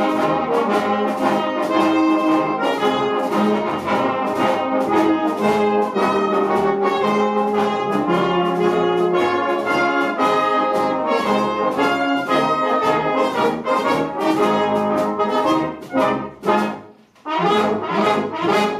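Brass band playing a march at full volume with a steady beat; it drops away briefly near the end, then closes on a loud final chord that cuts off.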